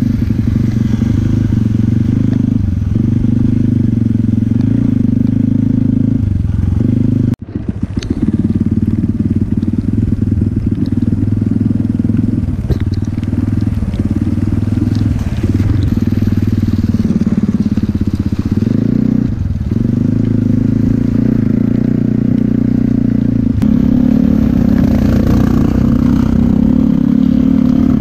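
Motorcycle engine running while riding, heard from on the bike, its pitch dipping and picking up again every few seconds with throttle and gear changes. The sound cuts out sharply for a moment about seven seconds in.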